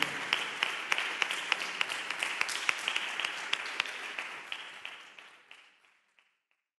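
Audience applauding, a dense patter of many hands clapping that fades out about five to six seconds in.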